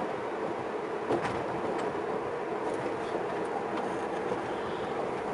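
Steady road noise heard inside a moving car's cabin: engine and tyres running on a highway, with a few faint clicks.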